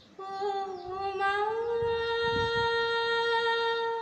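A woman singing unaccompanied, holding one long sung note that slides up a step about a second and a half in and is then held steady.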